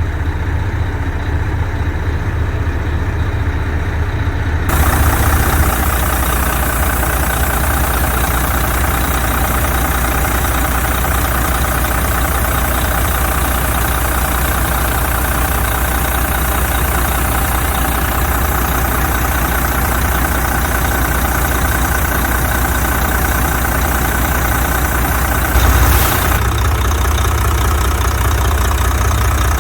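Volvo FH13's 13-litre inline-six diesel idling steadily while it warms up after a rebuild with new pistons and injectors. The sound gets fuller about five seconds in, with a brief louder moment near the end.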